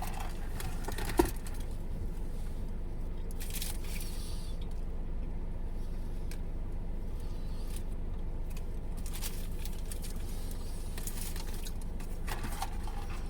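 Steady low rumble of a parked car's idling engine, heard inside the cabin, with a sharp click about a second in and a few light scrapes and rustles.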